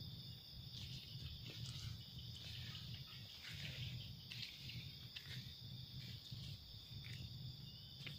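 Night insects, crickets, keep up a steady high-pitched trill, with faint rustles and low handling noise as the camera moves through the plants.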